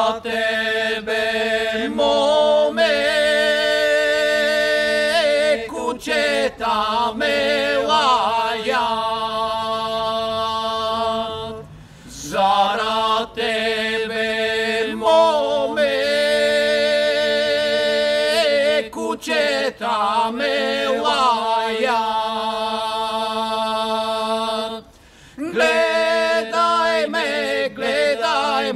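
Three men singing a Pirin folk song a cappella in two parts, the melody moving over one voice holding a steady low note. The singing breaks off briefly about twelve seconds in and again about twenty-five seconds in, then resumes.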